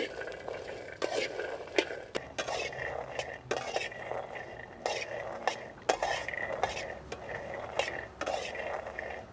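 Metal ladle scraping and clinking against an aluminium wok while stir-frying green peas, garlic and chili, with irregular scrapes and knocks about once a second.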